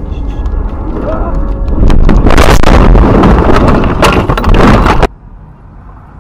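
Car crashing off a snowy road into the roadside brush and trees at speed: a long, very loud clatter of knocks and impacts as branches and snow batter the body and windscreen, building up over the first two seconds and cut off suddenly about five seconds in.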